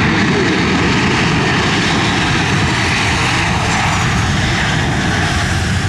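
Boeing P-8 Poseidon's twin CFM56 turbofan engines running loudly and steadily as the jet rolls out along the runway just after touchdown.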